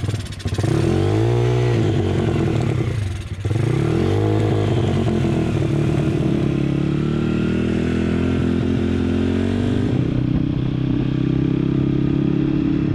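A 1974 Honda CT70 mini bike with a YX 140cc single-cylinder four-stroke engine pulls away under power. Its pitch climbs and falls, drops sharply about three seconds in, then climbs again and settles into steady running.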